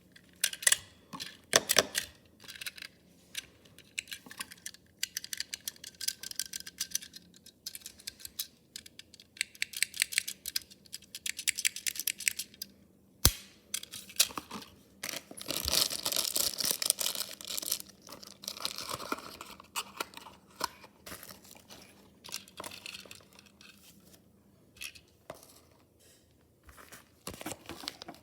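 Product packaging being handled and opened by hand: irregular rustling, crinkling and tearing with many small clicks, a single sharp click about 13 seconds in, and a longer tearing stretch a couple of seconds later.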